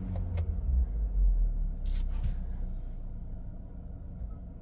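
Steady low hum and rumble inside the cabin of a running car, with a few short clicks and handling noises near the start and about two seconds in.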